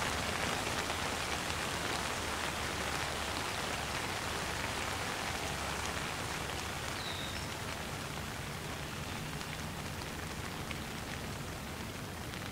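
Light rain falling steadily: an even hiss with faint scattered drop ticks, easing off slightly in level.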